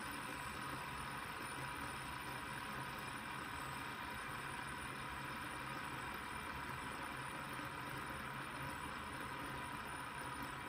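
A brass fidget spinner with a hybrid ceramic R188 bearing spinning freely, giving only a faint, even whir under a steady hiss.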